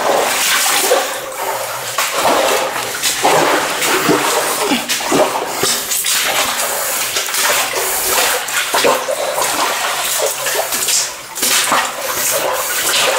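Boots wading through shallow water and mud in a narrow tunnel: continuous sloshing and splashing with irregular steps.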